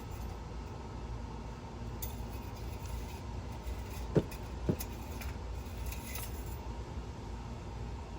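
Engine oil dipstick being slid back into its tube and drawn out again: light metallic scraping and clinking, with two sharp clicks about half a second apart a little past the middle. A steady low hum runs underneath.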